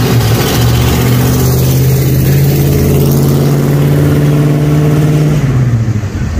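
1950 Ford F1 pickup's flathead V8 running under way. The engine note rises about half a second in, holds steady, then drops near the end.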